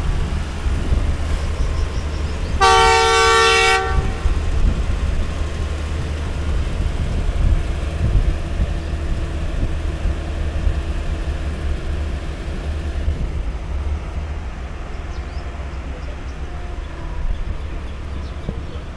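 Train running with a steady low rumble; about three seconds in, the ZCU-30 diesel-electric locomotive's multi-tone horn sounds once for about a second.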